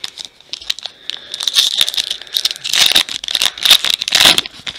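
Shiny trading-card pack wrapper crinkling and tearing as it is pulled open by hand, a dense crackle that builds and is loudest in the second half.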